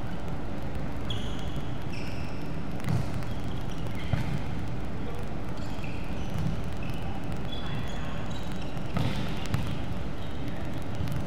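Indoor volleyball play on a hardwood court: the ball struck sharply a few times, with short high squeaks of shoes on the floor in between, over a steady background hum.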